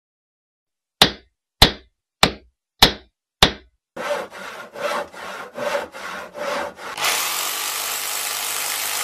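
Workshop sound effects: five sharp knocks a little over half a second apart, then about six back-and-forth strokes of sawing through wood, then a steady rasping noise about seven seconds in.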